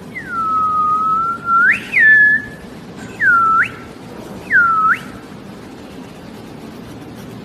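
A person whistling: a long note that dips and holds, then rises sharply, followed by two short swooping whistles that dip down and snap back up.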